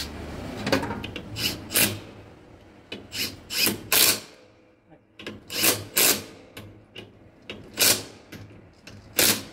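Cordless drill-driver run in about a dozen short bursts against the gear housing's bolts.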